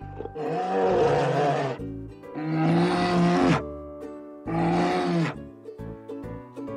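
Bear growling: three rough bursts of about a second each, with a fourth starting near the end, over light background music.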